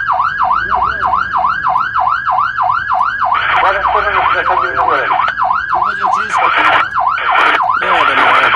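Fire engine's siren on a fast yelp, a rising-and-falling whoop about four times a second, heard from inside the cab. From about three seconds in, it is joined by several short blaring horn blasts meant to clear the way through traffic.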